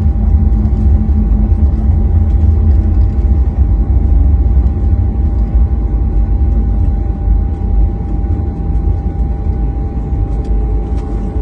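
Boeing 737 cabin noise just after landing, heard from inside the cabin: a loud, steady low rumble of the engines and the airframe rolling on the ground, with a steady whine running through it. The rumble eases slightly about two-thirds of the way through as the aircraft slows.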